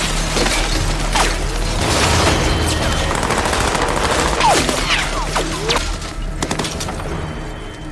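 Heavy, rapid rifle fire from several gunmen: a dense volley of shots that thins out over the last couple of seconds.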